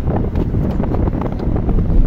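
Wind buffeting the microphone over the low road rumble of a moving car, heard from inside the cabin.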